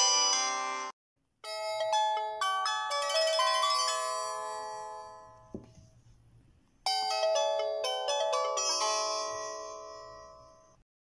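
Samsung SCH-X609 mobile phone startup and shutdown jingles: two short polyphonic melodies of bell-like electronic notes, each fading out, the second starting about seven seconds in. The tail of an earlier phone jingle cuts off abruptly about a second in.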